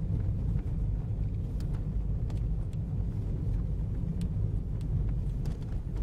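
Steady low rumble of a car driving on a slushy, snow-covered road: engine and tyre noise, with a few faint ticks.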